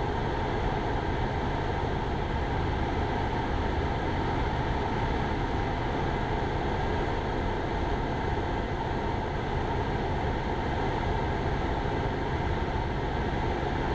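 Cessna 172 Skyhawk's single piston engine and propeller droning steadily in flight, heard inside the cockpit.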